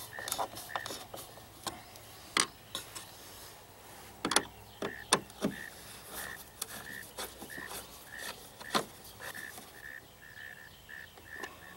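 Hand screwdriver driving stainless screws into a navigation-light base on an aluminum boat rail: scattered sharp clicks and scrapes of metal on metal. A short high chirp repeats over and over behind it.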